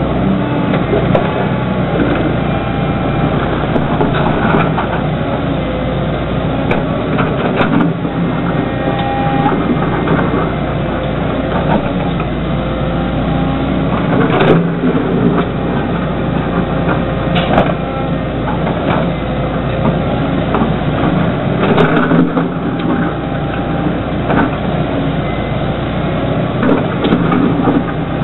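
Liebherr 914 Litronic excavator working, its diesel engine running steadily under load, with repeated clanks and knocks from the bucket and boom as it digs.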